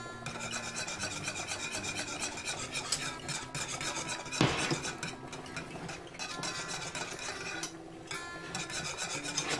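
Wire whisk scraping and rubbing around a saucepan in quick repeated strokes, beating roux into chicken stock as it thickens into a gravy. A single sharp knock about halfway through.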